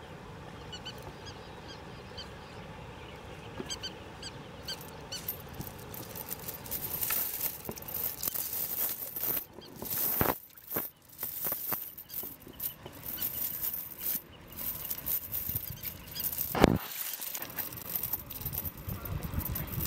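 A metal chain clinking and rattling as it is lifted and untangled by hand, building up a few seconds in, with a sharp knock about three-quarters of the way through as the loudest moment.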